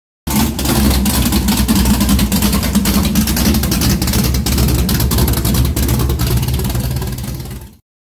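Big-block 440 V8 of a 1970 Plymouth Duster running loudly, a deep engine note with irregular sharp cracks throughout; it fades briefly and cuts off just before the end.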